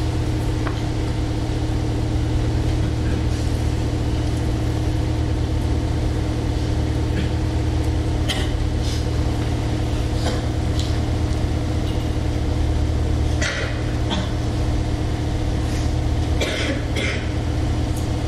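A steady low hum with a buzzing edge, loud and unchanging, with a few brief hissy noises over the second half.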